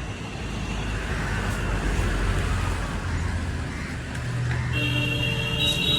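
Road traffic: a steady rumble of engines and tyres, with a sustained pitched tone of several notes coming in near the end.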